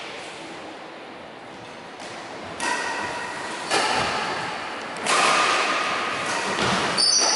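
Badminton rackets striking the shuttlecock in a doubles rally. Several sharp, echoing hits come about a second apart, starting a couple of seconds in, mixed with high squeaks of shoes on the wooden court floor near the end.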